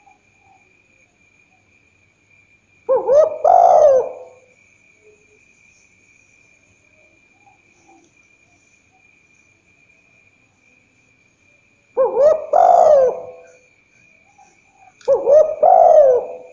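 Spotted dove (tekukur) cooing: three short phrases of low coos, about three seconds in, about twelve seconds in and near the end.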